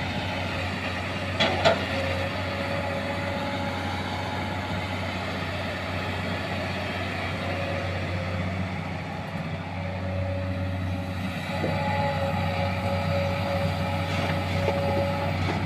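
Heavy diesel earthmoving machinery running steadily, as an excavator loads a dump truck. A faint high steady tone comes and goes, and two short knocks sound about a second and a half in.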